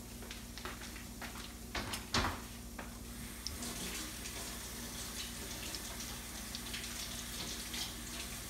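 Sesame-coated dough balls deep-frying in hot oil: a steady sizzle with small crackling pops, fuller from about three and a half seconds in. Two louder knocks come about two seconds in.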